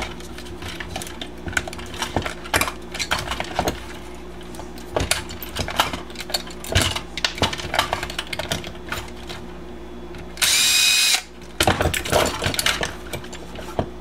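Plastic parts clicking and knocking as they are handled, then about ten seconds in a Makita cordless drill/driver whirs for under a second, spinning up as it backs a screw out of the toy's plastic housing.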